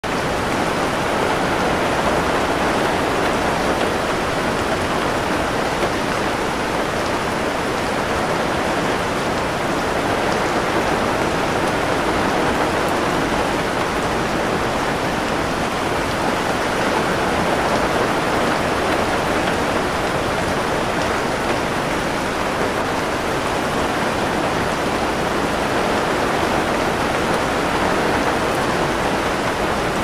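Heavy downpour of rain falling on forest foliage, a steady, even hiss throughout.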